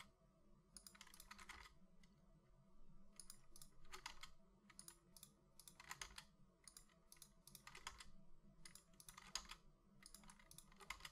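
Faint clicking of computer keyboard keys and mouse buttons in short, irregular clusters about every second, over a low steady hum.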